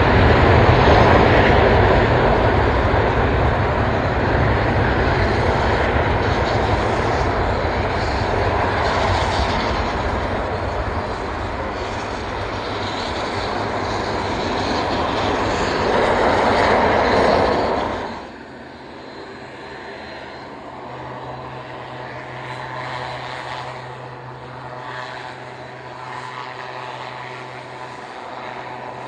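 A pair of delta-wing fighter jets taking off together at full power, a loud steady jet roar that swells again shortly before it stops. About eighteen seconds in it cuts abruptly to the quieter, steady hum of a Shorts Tucano trainer's turboprop engine and propeller as it taxis.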